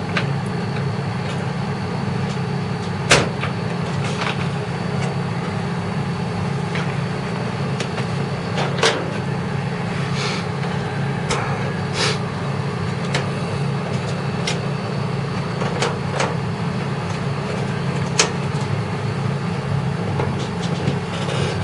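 Scattered clicks and knocks of hands working inside a desktop computer case, unplugging the SATA cables and freeing the hard drive, over a steady low hum.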